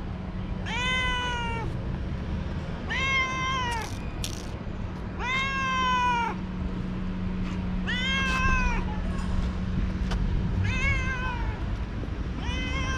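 Young domestic cat meowing repeatedly: six drawn-out meows about two seconds apart, each rising and then falling in pitch.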